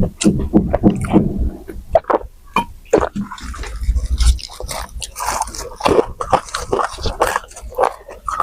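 Close-miked eating sounds of a saucy, soupy meal: wet chewing and slurping, with irregular smacks and clicks.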